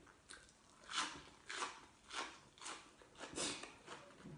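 Crisp, crunchy chewing of a raw leafy vegetable, about six chews spaced roughly half a second apart.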